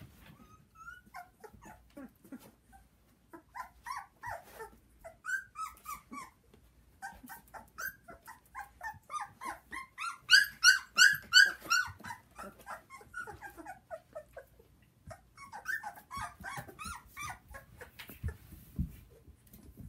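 A litter of young puppies making many short, high-pitched calls, with a fast, loud run of them about halfway through.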